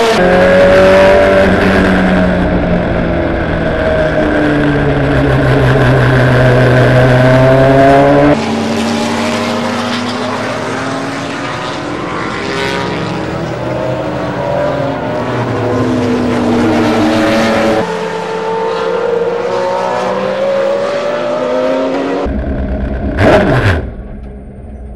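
Ferrari GT race car engine heard from onboard, its pitch climbing and falling as it accelerates, brakes and changes gear, with the sound jumping abruptly to a new stretch three times. Near the end a brief, loud engine sound drops sharply in pitch, and the level falls away after it.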